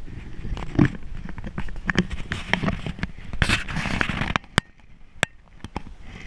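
Hammock fabric and clothing rustling and crinkling as a person shifts around in a hammock, with many sharp clicks and knocks. It goes quieter a little past four seconds in, leaving a few single clicks.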